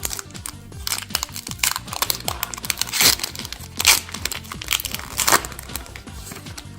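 Foil wrapper of a Pokémon trading-card booster pack crinkling and being torn open, with the loudest rips about three, four and five seconds in, over background music.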